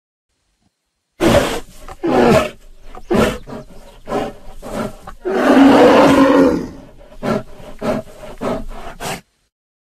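Lions growling in a run of short, rough bursts, with one longer, louder growl about midway; the sound starts abruptly about a second in and cuts off sharply near the end.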